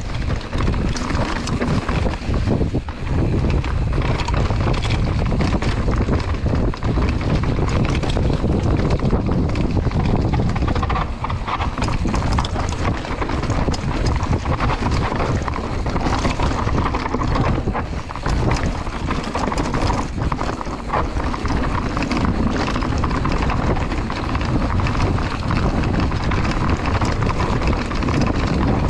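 Mountain bike descending a rocky, stone-flagged trail: tyres clattering and knocking over the stones, with the bike rattling, under steady wind buffeting on the GoPro's microphone.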